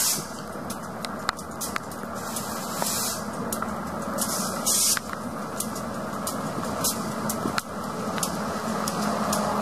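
EMD GP38 diesel switcher locomotive running slowly with a steady low engine hum, with sharp raindrop ticks scattered throughout and three short bursts of hiss: one at the start, one about three seconds in, and one just before five seconds.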